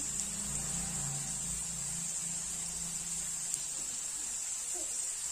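Potato wedges frying in mustard oil in a metal kadai, giving a steady high sizzling hiss with one small crackle about three and a half seconds in.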